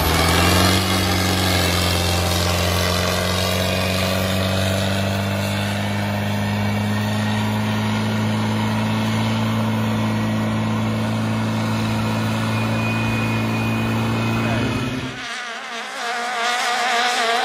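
Custom rice-paddy tractor's engine running at a steady speed, a constant low drone, while the tracked machine drives through the flooded field. About fifteen seconds in it gives way abruptly to a turbocharged longtail racing boat's engine at high revs, a higher, wavering whine over spray hiss.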